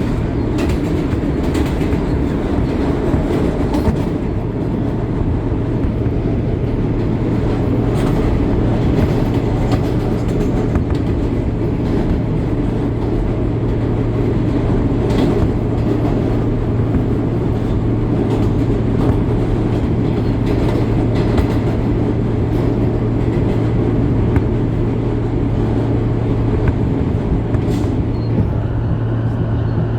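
R160 subway car running at steady speed, heard from inside the car with its air conditioning off. A constant low hum and wheel-on-rail rumble are broken by scattered clicks from the track.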